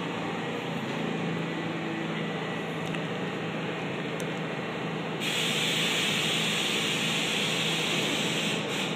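Stopped R32 subway train humming steadily at the platform; about five seconds in, a loud, steady hiss of compressed air starts from the train.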